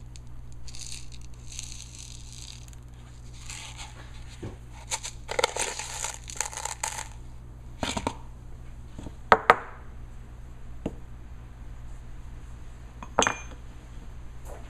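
Spindle-and-ram tooling and small plastic parts handled on a wooden workbench: rustling and handling noise at first, then scattered clicks, two sharp knocks in quick succession about halfway through, and a clink that rings briefly near the end. A steady low hum runs underneath.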